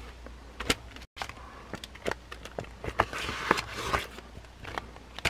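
Merchandise packaging being handled: scattered clicks and light rustling, busiest near the middle, with a brief dropout about a second in.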